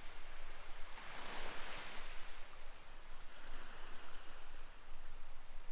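Gentle surf washing onto a pebbly beach. One wave hisses in and draws back about a second in.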